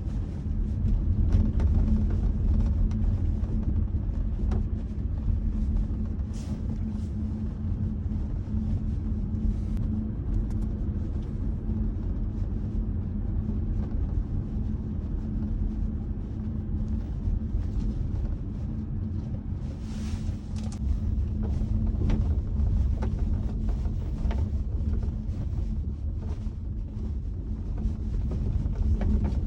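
Cabin sound of a moving Audi A6 C7: steady road and drivetrain rumble with a low hum, broken by short intermittent squeaks or creaks from the rear of the car. The noise is the unexplained rear squeak the owner is trying to identify.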